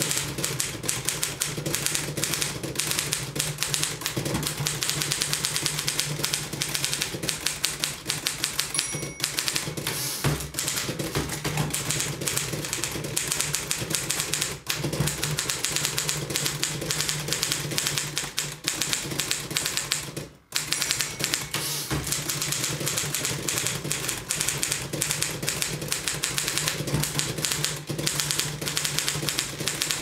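1929 Royal 10 manual typewriter being typed on fast: rapid, dense clacking of the typebars striking the platen. A short ringing tone sounds twice, about nine seconds in and near the end, and the clacking stops briefly about twenty seconds in.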